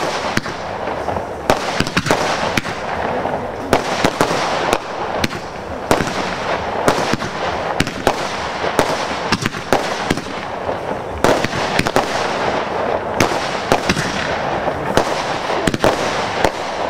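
Class 2 consumer fireworks going off: a fast, irregular run of sharp bangs and pops from small aerial bursts, several a second, over a constant din.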